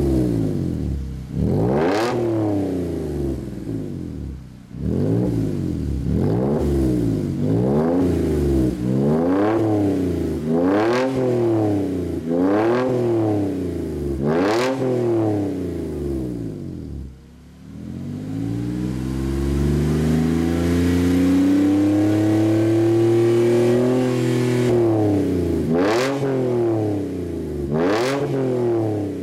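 Mercedes-Benz W212 E-Class engine revved through an Eisenmann aftermarket exhaust with the car standing still: sharp throttle blips about once a second. About two-thirds of the way in comes one long, slow climb in revs that is held for several seconds, then two more quick blips near the end.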